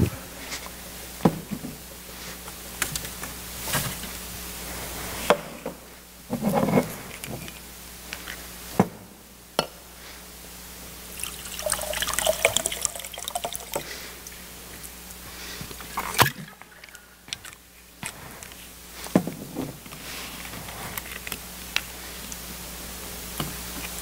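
Liquid poured from a bottle into a drinking glass for a few seconds around the middle, among scattered knocks and clinks of bottles and a glass set down on a countertop.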